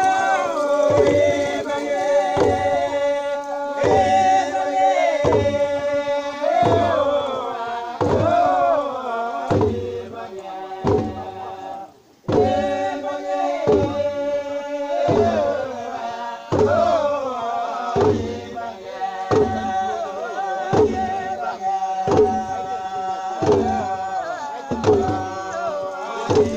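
Voices chanting a traditional Papua New Guinean singsing song over a steady low thumping beat, about one and a half beats a second. The chant and beat break off briefly about twelve seconds in, then resume.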